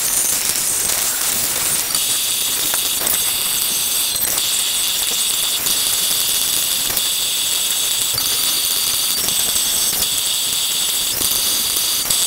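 Crowd and fireworks noise sped up for a time lapse: a loud, high-pitched hiss with steady whistling tones that switch abruptly, and scattered crackles.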